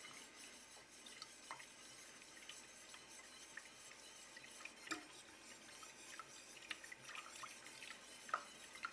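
Wire whisk stirring a thin cream sauce in a stainless steel pot, faint, with a few light clicks of the wires against the pot.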